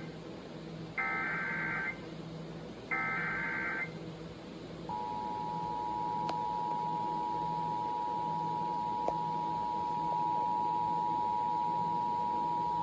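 Emergency Alert System signal. First come two short, buzzy digital data bursts of the SAME header, each about a second long and two seconds apart, encoding a Local Area Emergency alert. About five seconds in, the two-tone attention signal begins: a steady dual tone that holds for about eight seconds.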